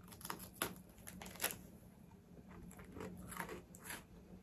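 Close-up crunching as a crisp Fujiya Home Pie biscuit is bitten and chewed. There are a few sharp crunches in the first second and a half, the loudest about a second and a half in, then softer chewing crunches.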